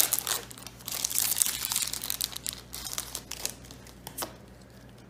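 Foil wrapper of a trading-card booster pack crinkling as it is torn open and handled, busiest in the first few seconds. It thins out near the end, where a few soft clicks of cards being sorted in the hand can be heard.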